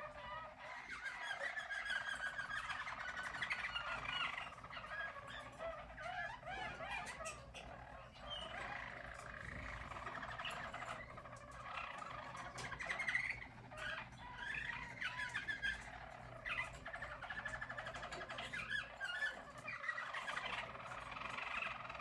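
Harz Roller (German Roller) canaries singing: an unbroken stream of fast rolling trills and tours, loudest around the middle.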